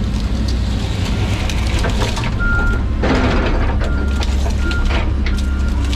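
John Deere 130G excavator's diesel engine running under load, with scattered sharp cracks and clanks. A backup alarm beeps four times in the second half.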